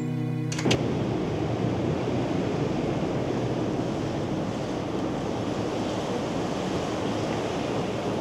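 Music cuts off with two sharp clicks just before a second in. It gives way to a steady rushing noise: the ambience of a concrete parking garage as an SUV drives through.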